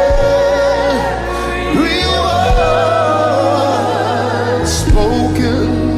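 Live gospel worship song: long held sung notes with vibrato over keyboard and bass accompaniment.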